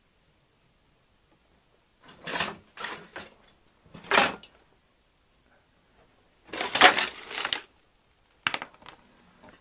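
Hard objects shifted and knocked about while rummaging through a pile of junk: four short bouts of clattering and scraping, the longest about two-thirds of the way through.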